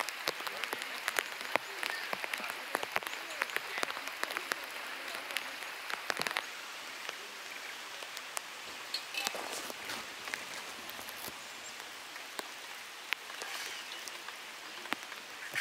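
Raindrops tapping on a tarp flysheet as separate sharp ticks, dense at first and thinning to scattered drops about halfway through.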